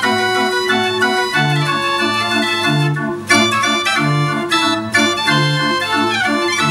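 Verbeeck 45-key Dutch street organ (draaiorgel) playing a quickstep medley: pipe melody and off-beat chords over alternating bass notes. The music breaks briefly about three seconds in, then comes back in with a sharp accent.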